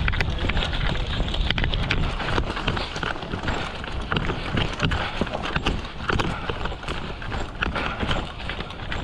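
Many quick, irregular clicks and knocks over a steady low rumble, with no even rhythm.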